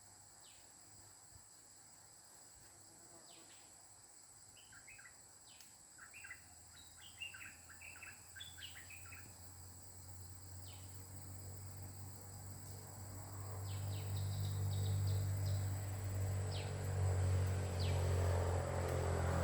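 A merbah lekir bulbul giving a quick run of short chirping notes, with a steady high insect drone behind it. A low hum grows steadily louder from about six seconds in.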